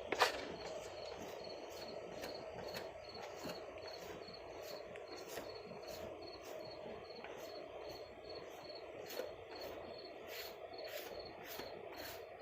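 A cricket chirping steadily in a fast, even rhythm of short, high chirps, faint against a low background hum.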